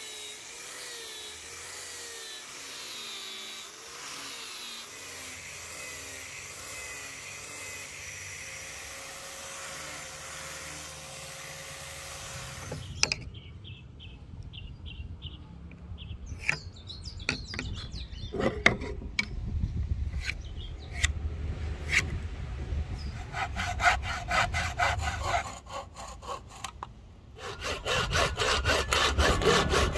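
An angle grinder with a sanding disc runs against a thin wooden board for about the first 13 seconds, as a steady hiss with a wavering motor tone. Scattered taps and clicks follow. From about 23 seconds in, a hand saw cuts into the thin board held in a bench vise with rapid, regular strokes, loudest near the end after a short pause.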